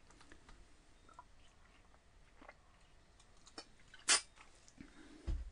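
A man drinking from a plastic bottle: quiet mouth and plastic clicks, with one sharp click about four seconds in, then a low thump near the end.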